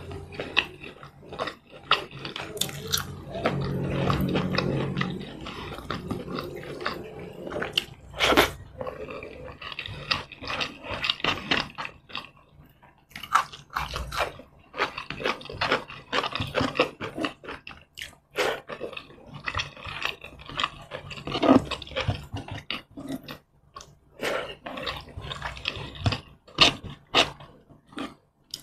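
Close-miked chewing and wet mouth sounds of someone eating roast chicken by hand: a steady run of lip smacks, clicks and chewing throughout.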